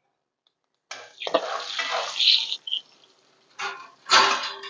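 Mustard seeds and urad dal sizzling in hot oil in a kadai for a tempering. There is a sudden hiss about a second in that lasts a second and a half, then two shorter bursts of sizzling near the end.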